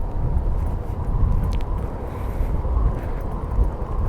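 Yamaha Mio i 125 scooter riding down a steep grade with the brakes held lightly: a steady rumble of wind and road noise on a GoPro microphone, with a faint steady hum.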